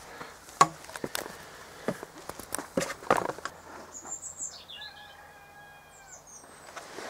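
Footsteps and rustling through long grass and undergrowth, with sharp crunches and clicks for the first few seconds. From about four seconds in, a small bird calls with a few quick, high chirps.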